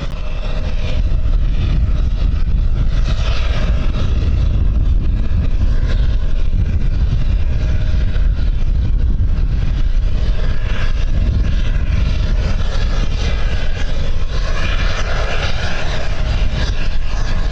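Wind buffeting the microphone as a steady low rumble, with the distant running of aircraft engines at an airport, growing louder near the end.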